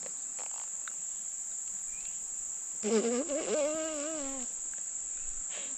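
A steady, high-pitched chorus of insects keeps on throughout. About three seconds in, a person's drawn-out, wavering voice rises over it for a second or so.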